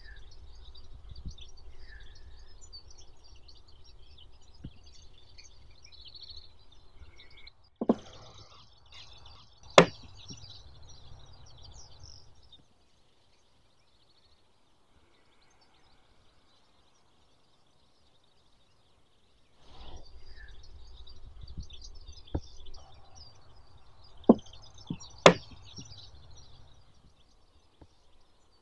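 Chess pieces knocked down sharply on a board, about five single knocks in two clusters, the loudest about ten seconds in and near the end, over birds chirping and a low outdoor rumble. The sound drops to near silence for several seconds in the middle.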